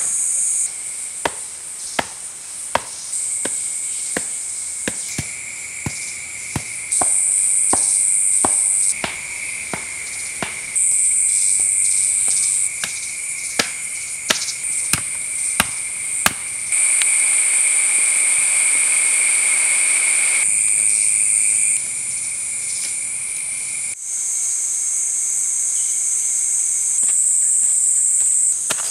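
A loud, shrill insect drone that steps up and down in level every few seconds. Over it come sharp knocks of wood being struck as stakes are pounded in for a stick fence, about one or two a second for the first half and scattered after.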